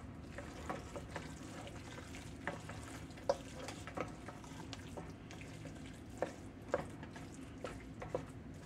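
Wooden spoon stirring a moist squash dressing mixture in a stainless steel pot, with soft scraping and irregular light knocks of the spoon against the pot about once a second.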